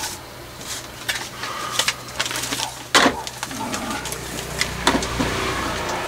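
Irregular clicks, knocks and scraping of hands working inside a camper's open absorption fridge to fit an internal barrier, with one louder knock about three seconds in. A steady low hum runs underneath.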